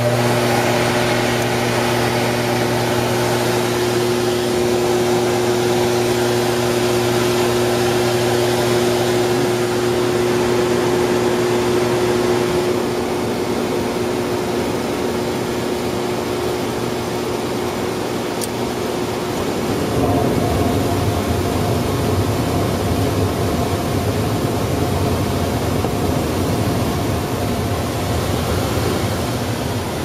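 Gas furnace starting on a call for heat: the draft inducer motor hums steadily while the hot surface igniter heats, then about two-thirds of the way through the burners light and a broader rushing sound of gas flame and airflow takes over.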